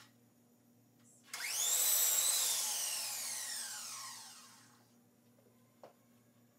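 Electric miter saw starting abruptly and cutting a wooden fence board, then its blade winding down with a falling whine that fades over about three seconds. A light knock near the end.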